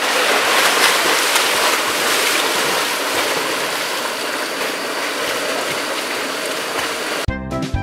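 Water splashing and churning as several men plunge into and swim in a well, loudest in the first second or two. Background music cuts back in near the end.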